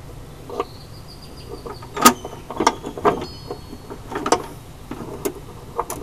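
Metal brake line being bent by hand: irregular clicks, taps and scrapes as the tube shifts and knocks against the car's underside, the sharpest tap about two seconds in.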